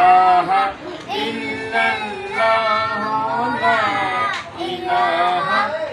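Children singing together in several young voices, in phrases of long held notes with short breaks between them.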